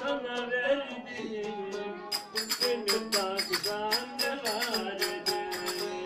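Live Turkish folk music played on a plucked lute: a wavering melody, with quick repeated plucked notes from about two seconds in.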